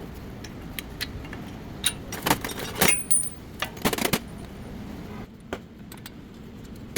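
Metal tools and parts clinking and clattering as they are handled, in a run of sharp clinks that is busiest about two to four seconds in.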